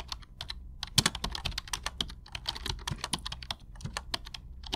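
Keyboard typing sound effect: a fast, irregular run of key clicks over a low hum, accompanying on-screen text being typed out letter by letter.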